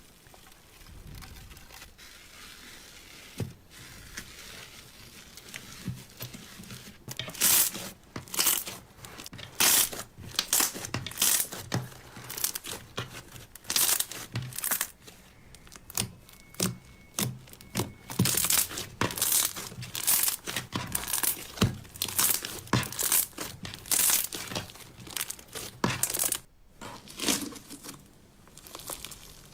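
Slime being squeezed and pressed by hand, making irregular crackling and popping that is soft for the first few seconds, then comes thick and fast.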